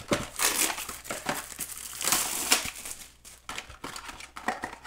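Plastic shrink wrap being torn and peeled off a trading card box, crinkling and crackling in quick snaps, loudest around the middle.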